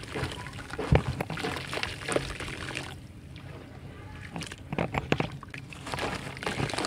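Dry red dirt cakes crumbling apart in the hands, gritty chunks crackling and splashing into a tub of muddy water, with one sharp knock about a second in. Around the middle it quietens to the hand sloshing the water, then a fresh cake crumbles with dense crackling.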